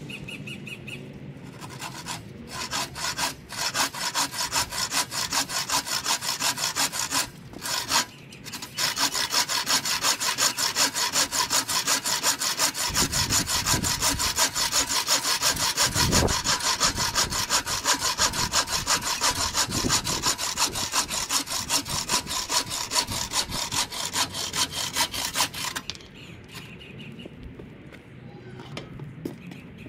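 Hand sawing through wood with a wooden-framed saw: quick, even push-pull strokes begin a couple of seconds in, stop briefly about a quarter of the way through, then run steadily until they stop a few seconds before the end.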